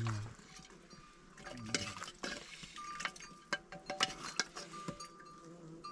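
Metal pots and utensils clinking and knocking several times, some strikes ringing briefly, with a little liquid being handled.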